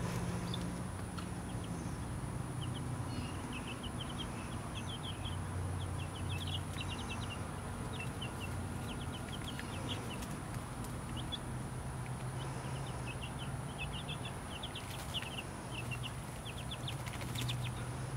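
Young chicks peeping: runs of short, high chirps, several a second, that come and go, over a steady low hum.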